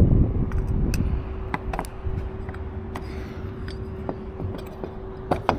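Hand work on parts during truck reassembly: scattered sharp clicks and knocks over a steady hum, with a low rumble that fades over the first second.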